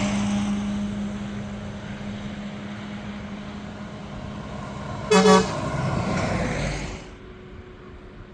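Trucks: a steady low drone fading away, a short truck horn toot about five seconds in, then vehicle noise swelling and cutting off about two seconds later.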